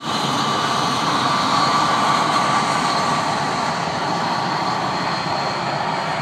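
Boeing 727-200's three Pratt & Whitney JT8D low-bypass turbofans running at taxi power: a loud, steady roar with a whine through it. It eases slightly in the second half as the jet rolls past.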